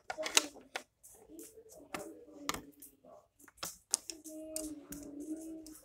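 Plastic ballpoint pens clicking and clattering together as they are shuffled by hand, with a child humming in between, most steadily from about four seconds in.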